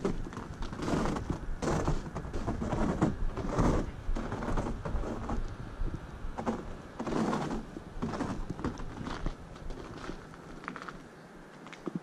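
Boots crunching on packed snow in slow, uneven footsteps over a low rumble; the steps thin out and the rumble drops away near the end.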